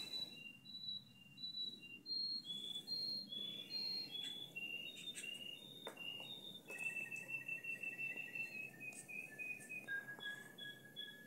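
Canary singing: runs of short, clear whistled notes repeated at an even pace, moving into a longer rolling trill about halfway through, with a few faint splashes of water as the canary bathes.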